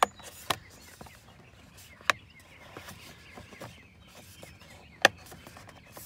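Plastic steering-column cover of an Infiniti Q50 being pressed into place by hand, its clips snapping in with four sharp clicks spread over several seconds.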